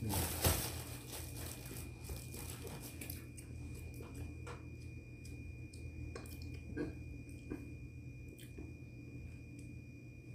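Plastic bag of khubz flatbread rustling and crinkling for the first couple of seconds, then scattered small clicks and rustles as a rolled flatbread wrap is handled and eaten.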